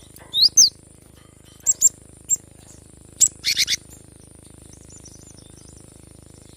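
Cinereous tit (gelatik batu) calling: a series of short, sharp chirps and quick whistled sweeps in the first four seconds, then only faint twittering.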